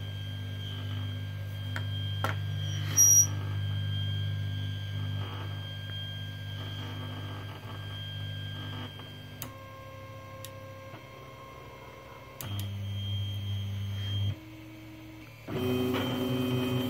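Anet A8 3D printer starting its print: its stepper motors whine at steady pitches that jump to new pitches several times as the axes move, over a steady low hum. A brief high chirp comes about three seconds in.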